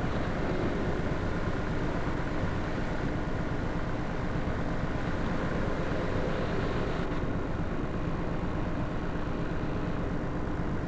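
A steady, even rumbling noise with a faint constant hum, unchanging throughout, with no distinct knocks or clicks.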